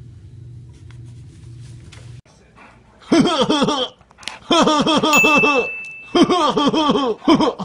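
A person laughing hard in quick, repeated bursts, with one steady high squeal lasting about a second near the middle. A low hum is all there is in the first two seconds.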